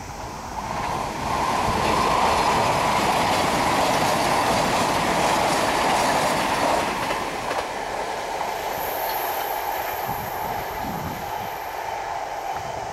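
A train passing on a curve, its wheels clattering on the rails, building over the first second or so and loudest for several seconds before easing off. A thin high squeal rises above it in the second half.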